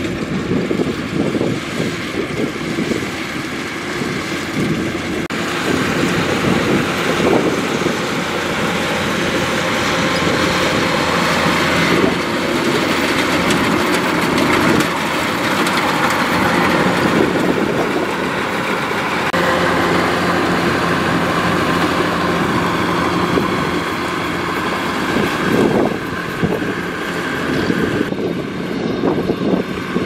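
Kubota DC105X rice combine harvester running steadily as it cuts and threshes rice: the diesel engine together with the header and threshing machinery. The sound changes character a few times.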